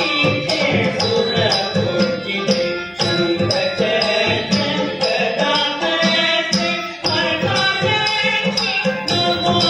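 Recorded Indian devotional song to Ganesha, with singing over percussion keeping a steady beat of about two strokes a second.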